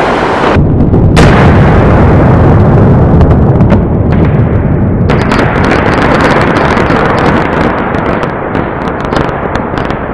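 Fireworks going off in a dense, continuous barrage of bangs, very loud throughout, with a sharp crack about a second in and many small crackling pops in the second half.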